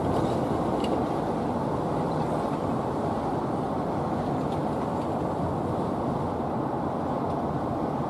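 Steady low rumble of outdoor background noise, with no gull calling.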